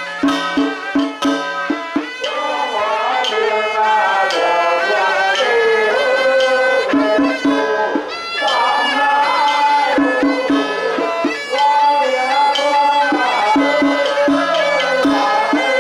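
Traditional temple ceremony music: a reedy wind instrument plays a wavering, gliding melody over regular percussion strokes about four a second, which drop away for a few seconds at a time in the middle.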